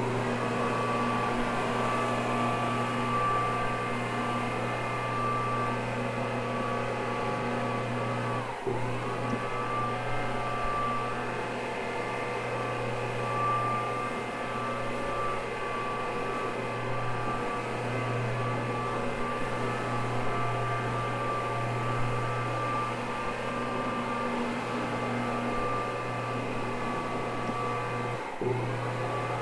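Electric carpet-cleaning machine with a soft scrub brush running steadily as it scrubs cleaning solution into a wool rug: a continuous motor hum. Its pitch sags briefly about a third of the way in and again near the end.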